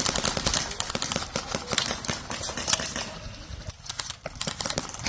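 Airsoft guns firing rapid full-auto bursts: a dense run of sharp clicking shots that thins out briefly about four seconds in, then picks up again.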